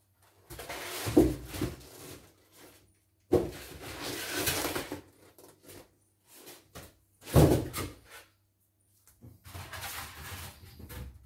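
Styrofoam packing blocks being lifted out of a cardboard box, foam rubbing and scraping against foam and cardboard in four bursts of handling noise, with dull knocks as pieces are pulled free and set down.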